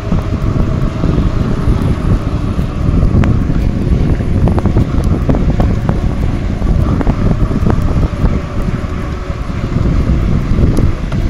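Wind buffeting the microphone of a camera on a moving bicycle, a loud steady rumble, with a few light clicks and rattles through the middle.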